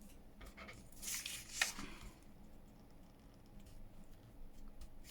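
A sheet of paper torn by hand in one short rip about a second in, followed by faint rustling as the paper is handled.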